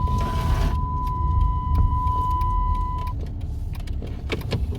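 Low rumble of a car rolling slowly, heard from inside the cabin, with a steady high beep that cuts off about three seconds in. A few light clicks come near the end.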